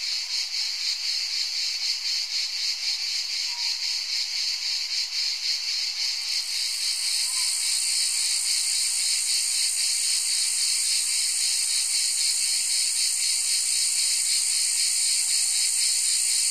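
Insects chirring: a dense, high-pitched pulsing drone that grows a little louder and steadier about six seconds in.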